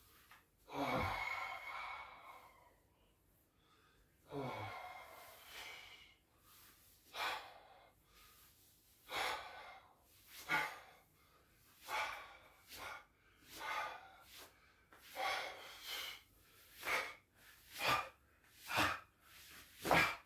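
A man breathing deeply and audibly, in and out through the mouth, during a bioenergetics body exercise. The first breaths are long and slow, a few seconds apart; from about halfway in they become short and regular, roughly one a second, and quicken a little near the end.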